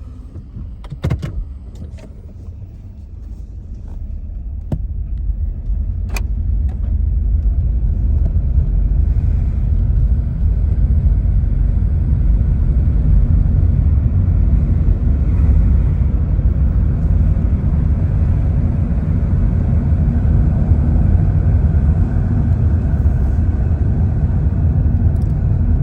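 A 2007 Honda Civic Hybrid's 1.3-litre four-cylinder engine and road noise as the car pulls away, with a few sharp clicks near the start. The low rumble builds over several seconds, then holds steady as the car drives on. The engine, misfiring on cylinders 1 and 3 after running low on oil and now dosed with Bar's Leaks, drives smoother but with a little sputtering.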